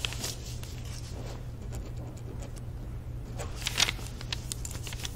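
Scattered small clicks, scrapes and rustles of someone handling things at an office desk, with a louder clatter about three and a half seconds in, over a low steady room hum.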